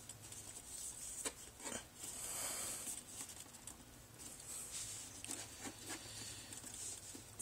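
Faint scattered plastic clicks and soft scraping as the removable roof of a large-scale Bachmann Spectrum caboose is worked back into place, hard to slide on.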